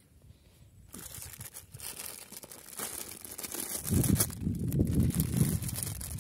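Thin clear plastic bag crinkling and rustling as it is handled and pulled open, with many small crackles; the handling gets heavier and louder from about four seconds in.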